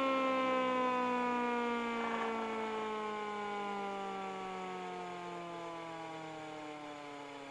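Woodworking jointer coasting down after being switched off: the motor and cutterhead whine falls slowly and steadily in pitch while fading away.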